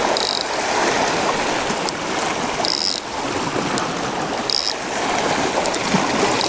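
Small waves washing over rocks at the shoreline, the noise swelling and easing every couple of seconds, with wind on the microphone. Four short high-pitched squeaks sound over it.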